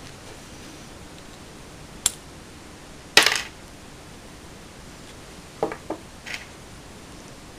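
Small metal parts of a Hi-Capa airsoft pistol clicking and clinking against each other and the wooden table as they are handled and set down: a sharp click about two seconds in, a louder short metallic clatter a second later, then a few lighter clicks near the end.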